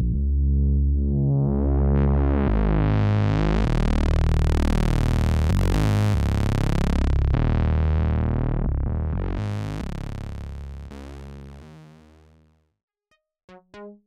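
Big bass patch on the u-he Zebra software synthesizer holding low notes, its tone brightening and darkening twice before it fades away. Near the end a new patch begins with short, evenly repeating pulses.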